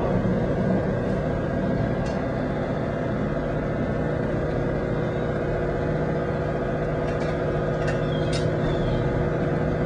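Steady low mechanical hum holding several tones, with a few faint clicks about two seconds in and again near the end.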